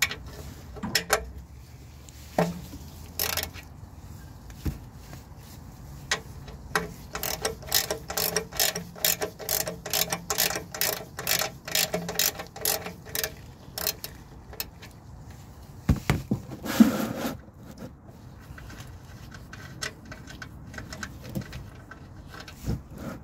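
Ratchet wrench clicking as the 17 mm drain bolt on an oil pan is backed out: a few clicks at first, then a long run of quick clicks, about three or four a second. A louder knock and short rustle come about two-thirds of the way through.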